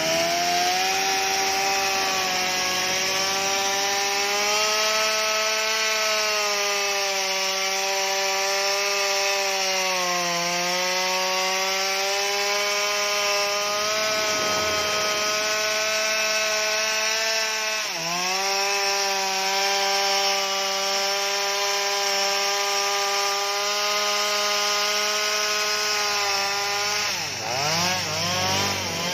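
Stihl MS 230 two-stroke chainsaw running at high revs while cutting into a mango tree trunk. Its engine note sags briefly under load three times, about 10, 18 and 27 seconds in, and picks back up.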